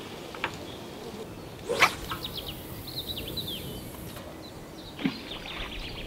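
A carp rod being cast: a sharp whoosh of the rod about two seconds in, then a couple of seconds of hiss as the line runs off the reel, and a short dull sound about five seconds in. Small birds chirp through the rest of it.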